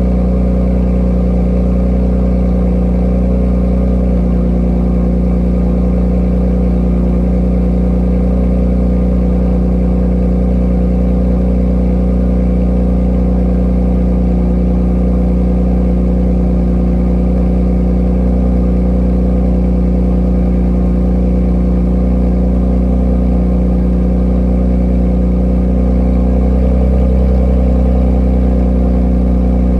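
Genesis G70 3.3T's twin-turbo V6 idling steadily through an Ark Performance cat-back exhaust, warming up after a cold start. Its note swells slightly near the end.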